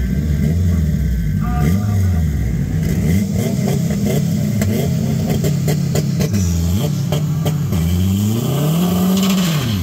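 Honda Civic coupe's four-cylinder engine revving repeatedly at the drag strip start line, the revs rising and falling several times with a run of sharp crackles in the middle. Near the end one longer rev climbs, then drops sharply.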